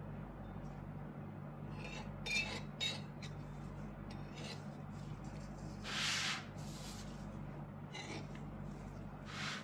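Knife blade scraping along the rim of a perforated stainless steel tart ring as it trims off excess shortcrust dough: several short rasping strokes, the longest and loudest about six seconds in.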